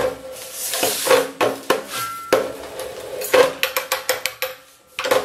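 Ratcheting hand pipe die cutting threads on 3/4-inch galvanized steel pipe: quick runs of sharp metallic clicks about once a second as the handle is worked back and forth, each with a short metallic ring. These are the last turns of the cut, with the thread almost at full length.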